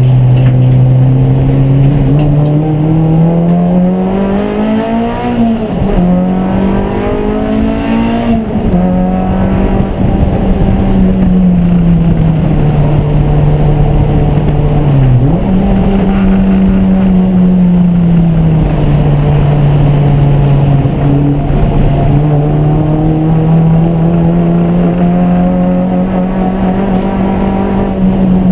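Race car engine running hard, its pitch climbing and then dropping sharply at gear changes a few times early on, with a brief dip about halfway through before holding fairly steady.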